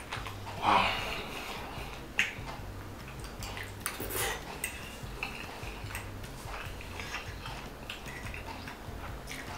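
Close-up eating of creamy pasta: wet mouth sounds of slurping and chewing, with a metal fork clicking and scraping on a ceramic plate. The loudest mouth sound comes about a second in, and a sharp clink about two seconds in.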